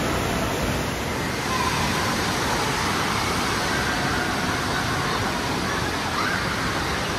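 Indoor water park ambience: a steady rush of moving pool water, with faint voices of children and swimmers in the background.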